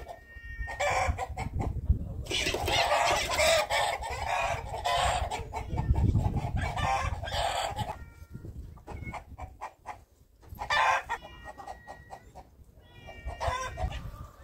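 Chickens clucking, with a rooster crowing; the loudest, harshest calling comes in the middle stretch.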